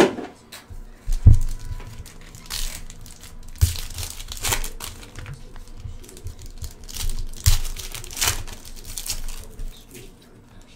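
Trading-card pack wrappers being torn open and crinkled in irregular rustling bursts, with a few short dull thumps from handling the packs, the loudest about a second in.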